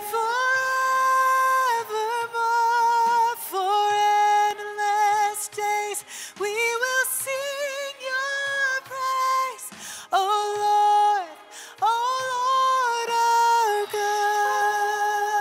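Soloed female lead vocal track from a worship song, sung without accompaniment in phrases of long held notes with a light vibrato, played back through a vocal plugin chain.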